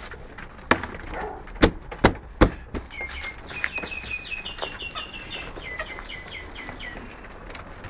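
A few sharp knocks in the first two and a half seconds, then backyard chickens calling in a quick run of short high notes, about four a second, for around four seconds.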